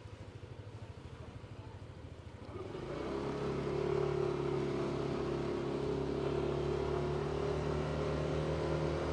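Motor scooter engine at low revs with a pulsing beat. About two and a half seconds in it picks up speed and then holds a steady, even hum.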